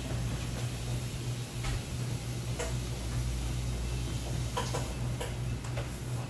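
A few short, light clicks and knocks of kitchen work over a steady low machine hum.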